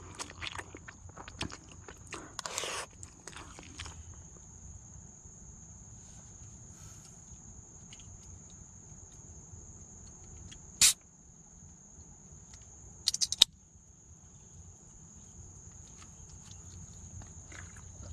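Steady, high-pitched insect drone, typical of crickets or cicadas, over a faint low rumble. Rustling handling sounds fill the first few seconds. A single sharp click comes about eleven seconds in, and a quick rattle of clicks a couple of seconds later.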